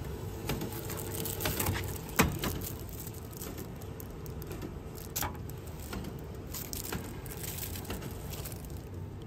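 Items being taken out of a vending machine's pickup bin: a run of small clicks and clatter from the machine's clear plastic flap and a plastic-wrapped spoon, with one sharp knock about two seconds in.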